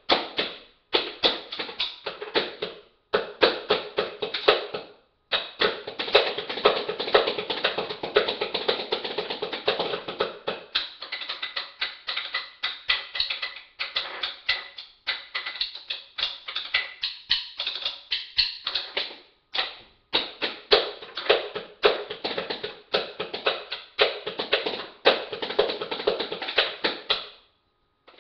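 Improvised drumming with sticks on a glass jam jar and two metal tobacco tins: fast, dense strings of strikes and rolls, broken by a few short pauses, stopping about 27 seconds in.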